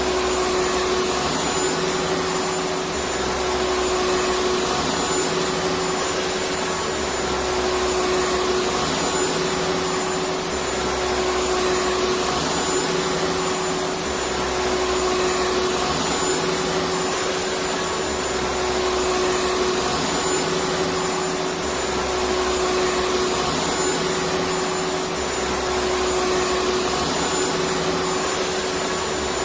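Vacuum cleaner running continuously: a steady hiss of rushing air with a constant motor hum, and a low rumble that swells and drops every couple of seconds.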